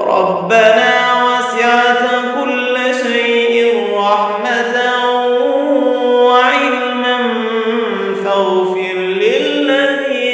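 A man reciting the Quran in slow, melodic murattal style, drawing out long held notes with gliding, ornamented turns of pitch.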